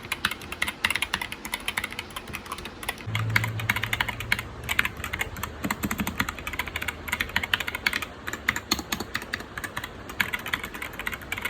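Fast typing on a TMKB GK61 60% mechanical keyboard with Gateron optical switches: a quick, unbroken run of key clicks. A low hum joins for about two seconds, starting about three seconds in.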